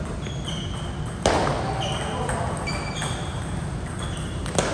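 Two sharp hits about three seconds apart, the first ringing on briefly, with several short high squeaks in between.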